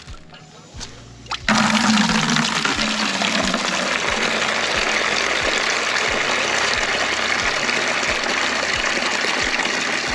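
Water pouring steadily into a 5-gallon bucket, starting suddenly about a second and a half in and cutting off near the end.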